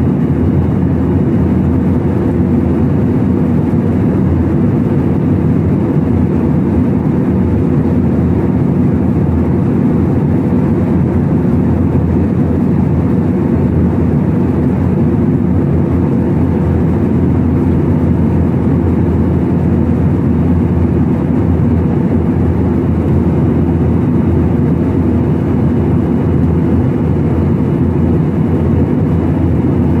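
Jet airliner cabin noise in cruise, heard inside the cabin at a window seat beside the engine: a steady, loud low rumble of engine and airflow noise that never changes.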